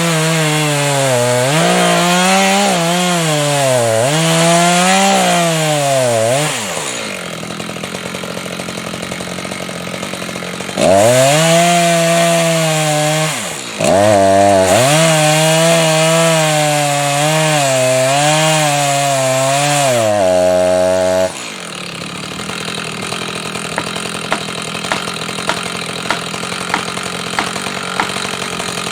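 Chainsaw cutting into a white spruce trunk, the engine pitch sagging and recovering as the chain bogs in the wood. It drops to a lower steady running about 7 seconds in, cuts again from about 11 to 20 seconds, then runs low with small regular clicks toward the end.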